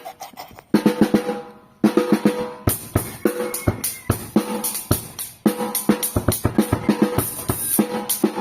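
Drum kit being played: snare and bass drum hits that ring after each stroke. It starts as a few spaced hits with a loud one about a second in, then from about a third of the way through becomes a busy groove with cymbals.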